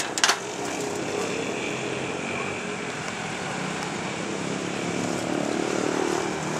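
Two quick knocks on the truck's metal crate racks right at the start, then a steady engine-like drone.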